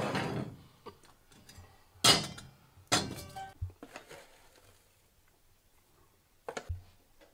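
Stainless-steel teapots and a lid clinking and clanking on a cast-iron stove top: a scrape at the start, two sharp metal clanks with a short ring about two and three seconds in, and a light knock near the end.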